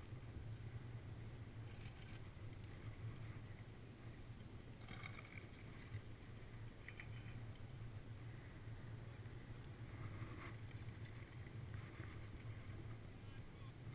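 Being towed up groomed snow on a drag lift: a steady low rumble of sliding over the snow, with a few faint scrapes.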